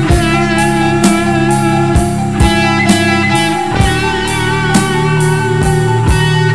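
Dramatic rock background music: guitar over a steady drum beat of about two hits a second.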